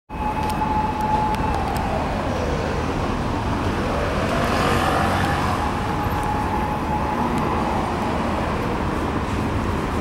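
Isuzu Erga city bus with a 6HK1-TCC six-cylinder turbo-diesel, running as it pulls away and turns at low speed. Over it a siren wails, holding a steady pitch, then sliding down and climbing back up.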